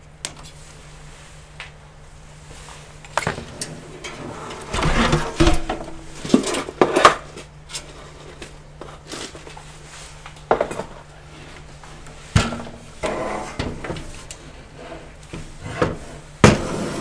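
Irregular knocks, clatter and scraping of a desktop PC case being handled and turned around on a desk, with a busy cluster of bangs a few seconds in and single knocks later.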